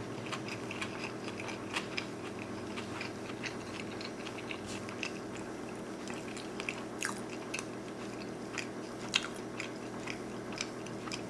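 Close-miked chewing of a sushi roll: soft, wet mouth clicks and smacks scattered irregularly over a steady low hum.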